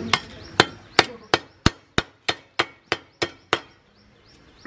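Brick trowel edge chopping at a brick held on the ground, eleven sharp strikes at roughly three a second, trimming the brick to size; the strikes stop about three and a half seconds in.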